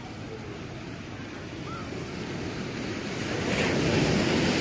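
Sea waves washing onto a sandy beach, swelling to a wave breaking loudest near the end.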